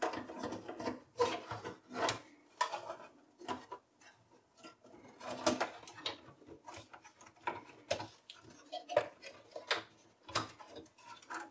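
Dell OptiPlex 9020 motherboard being worked into its tight steel case by hand: irregular clicks, knocks and scrapes as the board and its ports bump against the sheet-metal chassis, with barely enough space for it to go in.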